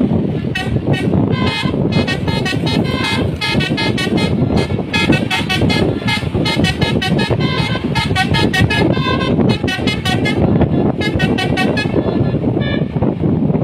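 A bus's Basuri telolet horn playing a quick, choppy multi-note melody over constant loud road and engine rumble. The horn stops about 13 seconds in, leaving only the rumble.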